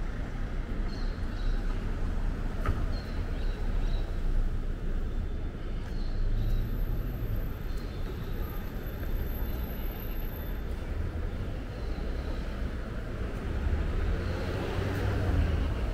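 City street ambience: a steady rumble of passing road traffic, growing louder near the end.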